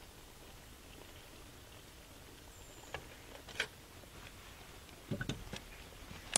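Faint clinks and knocks of a cooking pot being lifted off a camp stove and set down on a wooden table. A few light clicks come first, then a short cluster of knocks about five seconds in.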